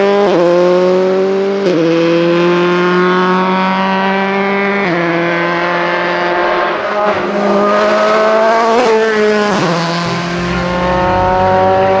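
Dallara F305 Formula 3 single-seater racing uphill at full throttle. The engine pitch climbs steadily through each gear and drops sharply at each upshift, about one and a half seconds in, about five seconds in, and again near nine seconds.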